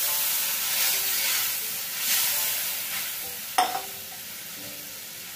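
Water poured into a wok of hot oil and spices sizzles and hisses, loudest at first and dying down over a few seconds. A sharp click comes about three and a half seconds in.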